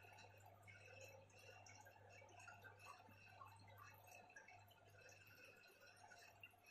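Near silence: faint dripping and trickling of aquarium water over a low, steady hum, as from a tank's filter or air pump.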